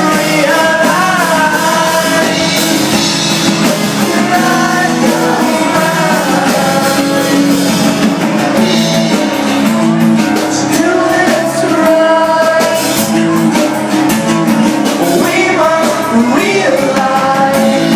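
Rock band playing live acoustic: a male singer singing over acoustic guitar and bass guitar, loud and continuous.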